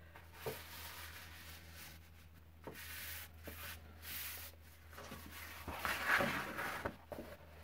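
Hands rubbing along a fold in a sheet of Strathmore 400 Series 140 lb watercolor paper, a faint swishing as the crease is pressed in gently. About six seconds in the stiff paper rustles louder as it is lifted and opened.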